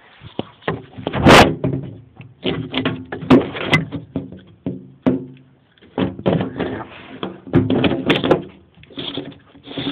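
Handling noise: a string of irregular knocks, clunks and rattles, as the camera is moved and things on the workbench are bumped. The loudest knock comes about a second in.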